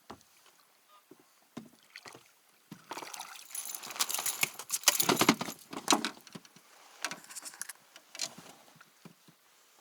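Water splashing and sloshing around a small fishing boat, with knocks, in irregular bursts that are loudest in the middle.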